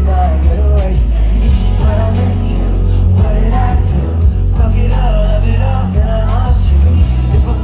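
Live pop concert music heard from the crowd: heavy bass under a sung melody line.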